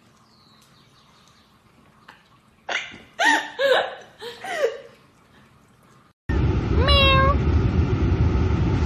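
A kitten meows several times, short high rising-and-falling calls. After a sudden cut, a cat meows once over the steady road noise inside a moving car.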